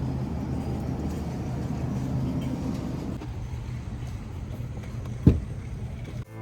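Steady hum and road noise of a vehicle on the move, with a single sharp knock about five seconds in; it cuts off just before the end.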